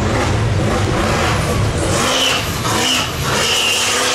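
Mega truck's engine at full throttle on a dirt drag run, with a heavy low rumble. From about halfway the engine's pitch rises several times in quick succession.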